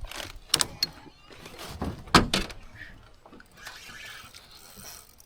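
Several sharp knocks and clatters of gear being handled in a small aluminium boat, about four in the first two and a half seconds, the loudest a little after two seconds in.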